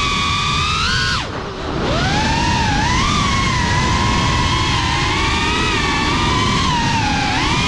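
GEPRC CineLog35 FPV quadcopter's brushless motors and propellers whining, the pitch rising and falling with the throttle. About a second in the whine drops sharply as the throttle is chopped, then climbs back up as power returns.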